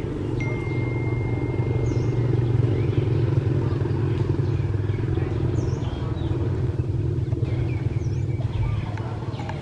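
An engine running steadily nearby, a continuous low rumble, with a few faint high chirps over it.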